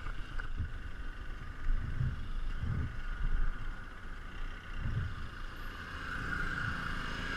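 Keeway Cafe Racer 152 single-cylinder motorcycle engine running steadily while riding up a steep hill, heard from the rider's helmet mic with wind buffeting it in uneven gusts.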